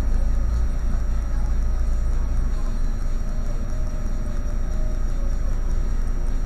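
A vehicle's engine idling while stopped, a steady deep rumble heard from inside the cab that eases slightly about two and a half seconds in.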